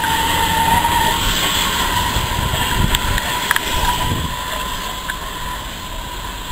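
A steam train, a small steam locomotive with a vintage coach, running slowly away along the track: a steady rushing noise with a thin high tone under it, slowly fading, with a few sharp clicks about three seconds in.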